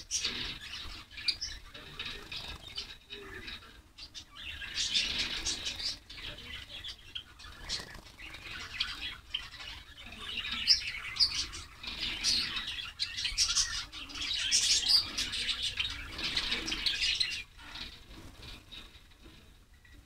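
A cage of white Java sparrows chirping, with several bursts of wing flapping and fluttering lasting a few seconds each.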